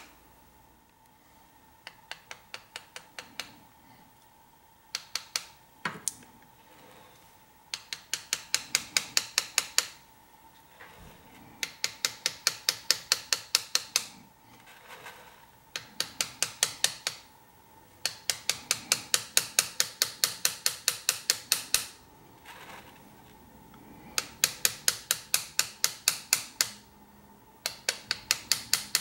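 Small hammer tapping a hand engraving chisel as it cuts a scroll into a metal plate: quick, light, evenly spaced taps about five or six a second, in runs of one to four seconds with short pauses between them, starting about two seconds in.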